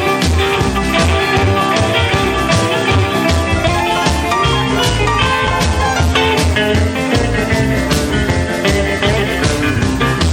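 Loud rock music with electric guitar and drums, played through a party sound system.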